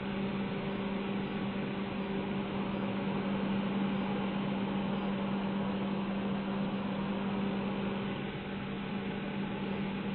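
Handheld hair dryer running steadily: a constant rush of blown air with a steady motor hum underneath.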